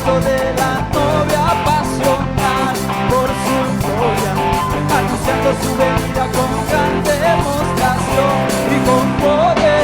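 Worship band music with guitar prominent, a wavering melodic lead line and a steady beat.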